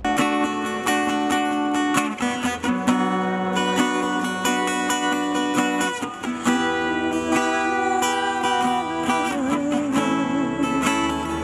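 Music: a song intro of strummed acoustic guitar chords, starting suddenly, with deeper low notes joining underneath about six and a half seconds in.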